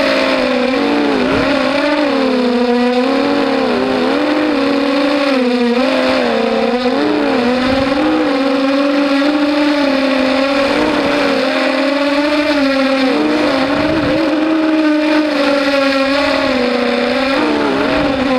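Mini racing quadcopter's electric motors and propellers buzzing, the pitch wavering up and down as the throttle changes.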